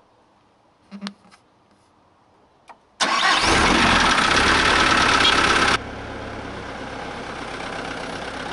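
Mitsubishi light truck's engine starting. A couple of soft knocks come about a second in; about three seconds in the engine starts loudly and runs, then the sound drops abruptly to a steady, quieter idle.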